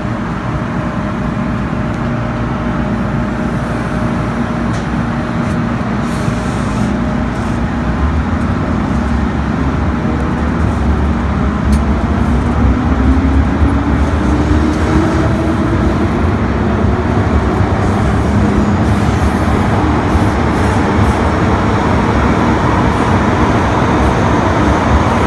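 MTR M-Train electric multiple unit pulling out of a station, heard from inside a carriage. A low rumble builds, then from about halfway in the traction motors' whine rises steadily in pitch as the train gathers speed into the tunnel.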